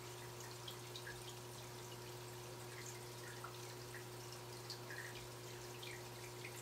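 Aquarium water dripping and bubbling faintly, with scattered small plinks, over a steady low hum.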